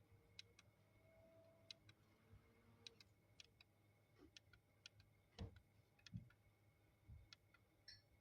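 Near silence with faint, irregular light clicks, several in quick pairs, and a few soft low thumps in the second half.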